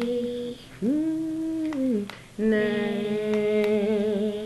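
Female voice humming a gospel melody without words, in three long held notes, the last one wavering slightly.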